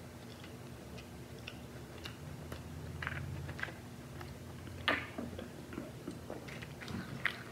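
Close-miked chewing with small wet mouth clicks, then sips and swallows from a soda can. A sharp click about five seconds in is the loudest sound.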